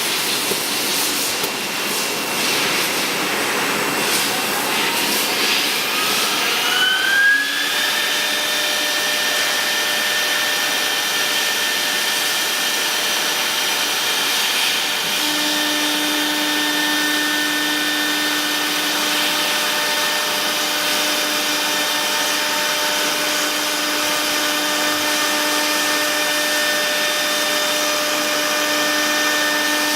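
CNC router spindle motor whining. Over the first seven seconds or so it rises in pitch amid a rougher noise, then it runs at a steady high pitch. A lower steady hum joins about halfway through.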